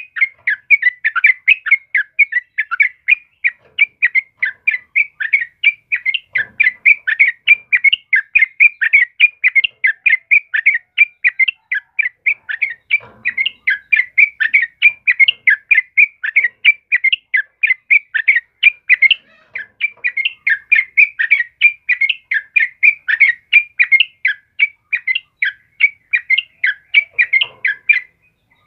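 Yellow-vented bulbul (trucukan) calling in a fast, unbroken run of short chirps, about three to four a second, stopping shortly before the end.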